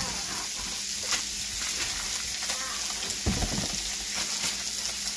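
Italian sausage sizzling steadily in a stainless steel skillet, with a couple of light knocks and a soft thump about three seconds in.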